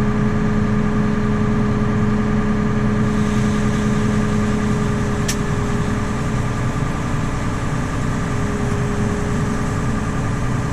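Tractor engine running steadily while pulling a grain cart, with the cart's unloading auger engaged but no grain flowing, because the cart's gate is closed. A single sharp click about five seconds in.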